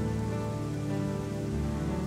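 Solo piano playing slow, sustained chords over a steady patter of rain, with a new low note entering about a second and a half in.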